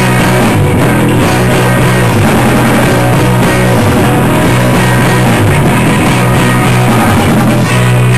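Live rock band playing loudly, an instrumental stretch with electric guitar, bass guitar and drum kit and no singing. About a second before the end the playing settles onto a held low note.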